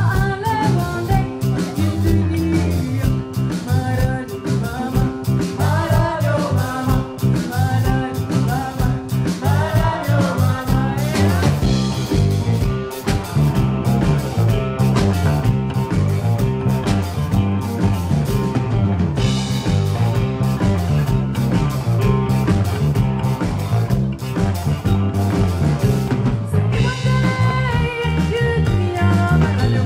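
Live band music, a woman singing over drums, bass and guitar with a steady rock/ska-style beat; the vocal line is most prominent in the first dozen seconds.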